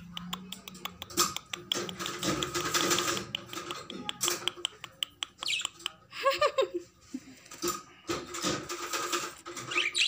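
Budgies clambering and pecking about a wire cage: a busy run of quick clicks and scratches, with a few short chirps a little past the middle.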